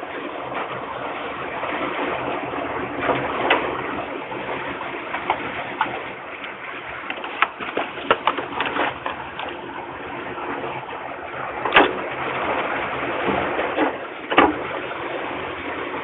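Steady rushing noise from the nest-box camera's microphone, with scattered sharp knocks and scrapes as peregrine falcon chicks move and flap about the box. There is a flurry of small clicks midway and two louder knocks in the second half.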